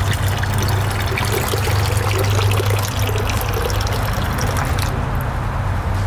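Thin streams of water pouring from holes drilled in a pelican statue and splashing into a pond, with a steady low hum underneath. The splashing falls away about five seconds in as the flow stops.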